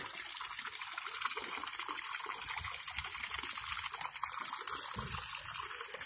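Small garden fountain with water trickling steadily down a stone cascade into a pond.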